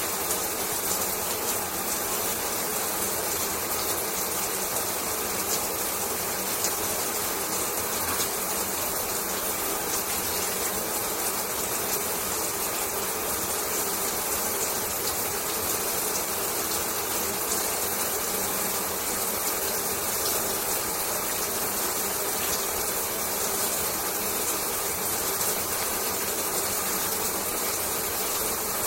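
Shower running: a steady, unchanging spray of water with a fine crackle of droplets.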